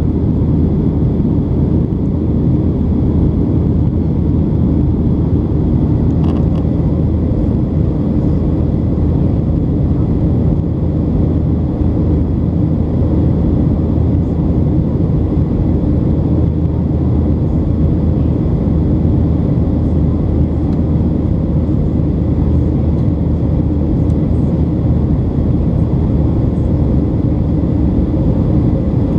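Cabin noise of a Boeing 737-800 in flight, heard inside the cabin by the window over the wing: the steady drone of its CFM56-7B turbofan engines and the airflow, with faint steady whines above it.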